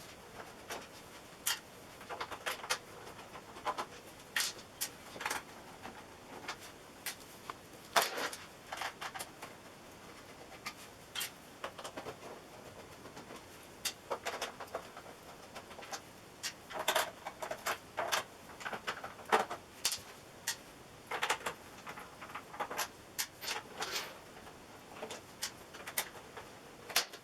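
Faint, irregular clicks and light knocks of a screwdriver turning out the back-cover screws of an LCD TV, with the screws and plastic cover being handled.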